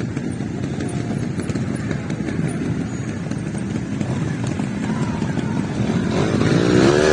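Trials motorcycle engine running at low revs as the bike picks through the section. It gets louder near the end, with the revs rising and falling as the bike comes close.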